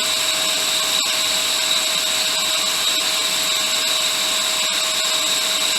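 Steady whir of a small electric fan or blower, with a faint high whine held at one pitch and no change in level.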